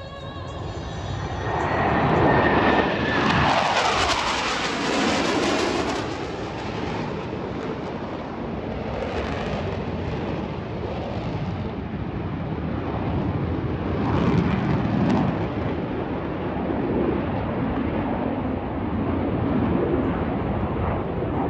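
Blue Angels F/A-18 Super Hornet jets flying past: a loud jet roar swells about two seconds in, with a whine that falls in pitch as they pass, then the roar carries on with smaller swells.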